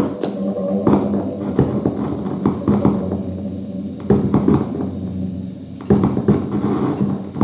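Experimental music: an amplified lap steel guitar struck with sticks, giving irregular sharp taps and knocks over a steady low drone.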